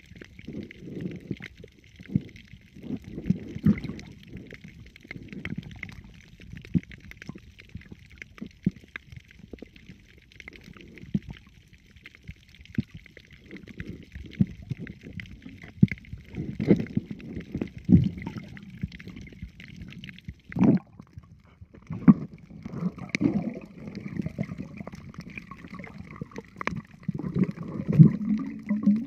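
Muffled underwater audio from an action camera in its waterproof housing: irregular low rumbles and sloshing of water moving around the swimming diver, with several sharper knocks in the second half.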